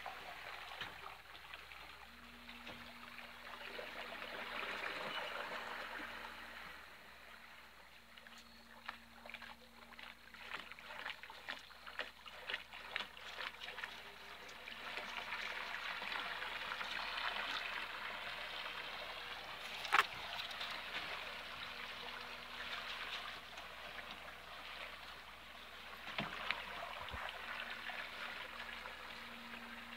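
A small flat-bottom boat under way on a pond: water splashing and lapping from its wake, with a faint steady motor hum that comes and goes. A single sharp click about two-thirds of the way in.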